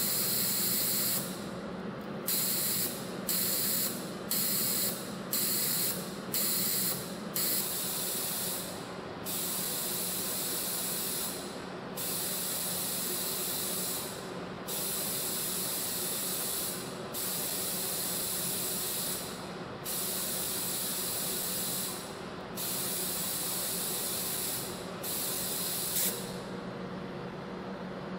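CNC compression spring coiling machine running: a steady low hum under a high hiss that cuts in and out with each cycle. The hiss comes about once a second at first, then in longer stretches of two to three seconds.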